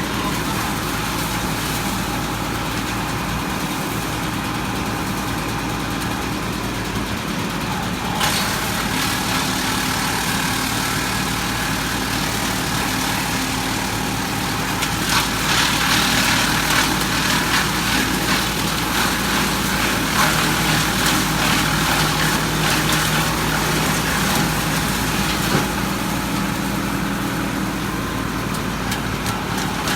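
Tractor engine running steadily, driving a branch wood chipper. About eight seconds in the sound turns brighter, and about fifteen seconds in it grows louder, with dense crackling over the engine.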